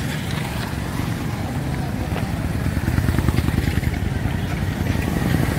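Street traffic: a motor vehicle engine running close by, a steady low rumble that grows louder from about three seconds in.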